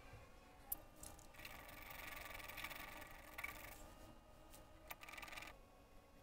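Faint handling noises: a sharp click, then a scraping rustle lasting a couple of seconds, and a few more clicks.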